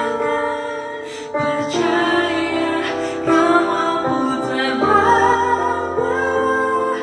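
A woman singing a slow ballad in long held notes over instrumental accompaniment.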